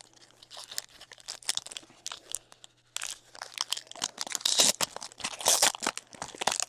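Foil trading-card pack wrapper being torn open and crinkled by hand, a dense crackling that gets louder about halfway through.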